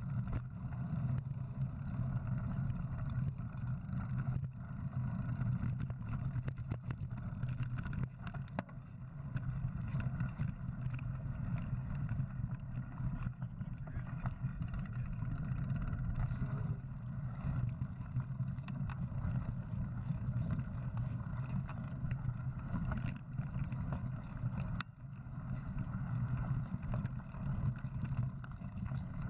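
Muffled wind and rolling rumble on a mountain bike's action camera as it rides a rocky dirt singletrack, with scattered short knocks and rattles from the bike going over rocks.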